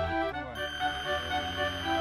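Background music with held notes, softer from about half a second in.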